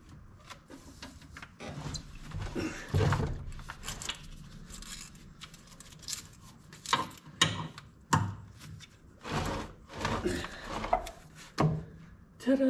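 Irregular knocks, thunks and scraping as a new truck battery and the cover that goes over it are worked into place by hand in a skid steer's engine bay. The loudest knocks come in the second half.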